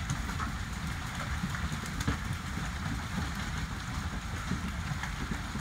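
Hailstorm: hail falling steadily, a dense, even patter of many small hits over a low rumble.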